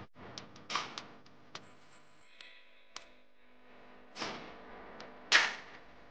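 Silicone spatula scraping and tapping against a metal wok while chopped chilies are stirred, in short irregular strokes, the loudest a little after five seconds in.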